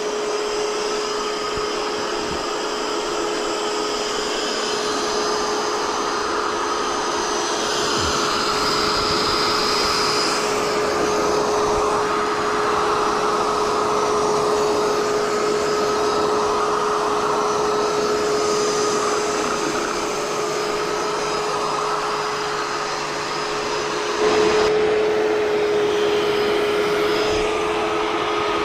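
Ecovacs Deebot T20e Omni robot vacuum running: a steady whine from its suction fan over a hiss of rushing air, getting a step louder near the end.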